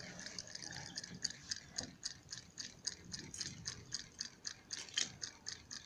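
Small homemade solenoid engine running, ticking lightly about four times a second as its solenoid drives the push rod and turns the flywheel.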